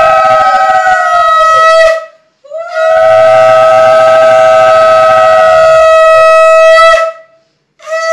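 Conch shell (shankha) blown in long, loud, steady blasts: one ends about two seconds in, the next holds for about four seconds, and a third begins near the end. Each blast sags in pitch as it dies away.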